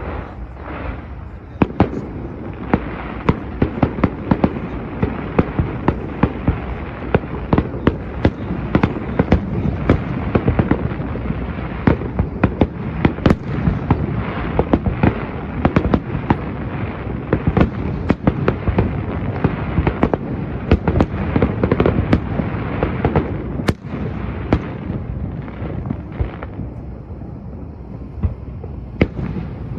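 An aerial fireworks display going off in a dense, continuous barrage of bangs and crackles over a steady rumble, several reports a second.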